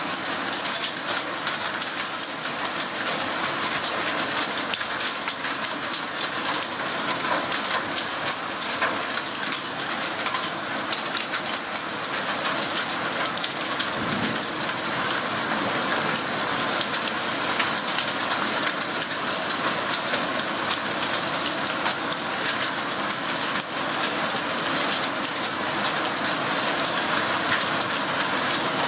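Heavy rain pouring down in a steady, unbroken downpour, a dense hiss of countless drops striking leaves and surfaces. A single brief low thump comes about halfway through.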